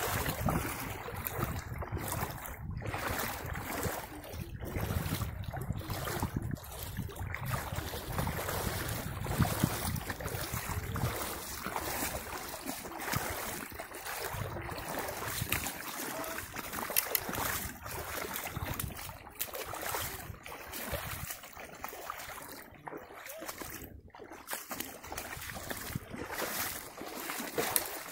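Shallow brook running over a bed of stones and gravel, a steady rushing noise, with boots splashing through the water near the start.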